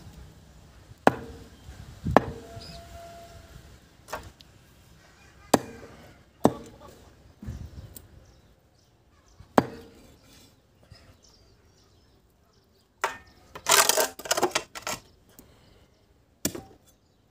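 Heavy knife chopping chicken on a wooden stump block: single sharp whacks of the blade into the wood every second or two. Near the end comes a quick flurry of rougher, noisier strokes, then one last whack.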